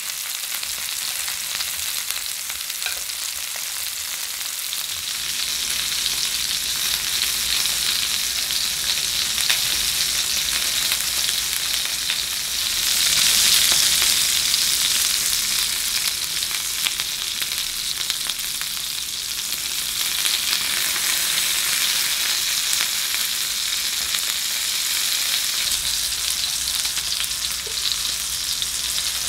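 Beef large intestines (daechang) and potato slices frying in their own rendered fat in a black grill pan, with a steady sizzle full of fine crackles and spatters. The sizzle swells louder for a couple of seconds about halfway through.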